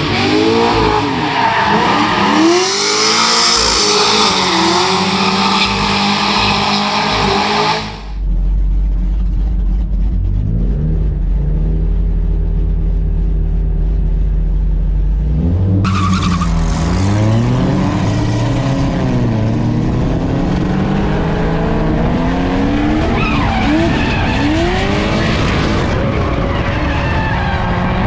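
Turbocharged Mazda Miata four-cylinder and another car revving through a tandem drift, with tires squealing. About a third of the way in, the sound cuts to the Miata idling steadily, heard from the car. A little past halfway the revs climb again and tire noise returns as it drifts.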